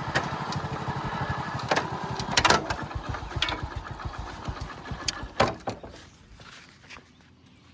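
An engine running with a fast, even low thumping and a few sharp clanks over it. It fades out about six seconds in.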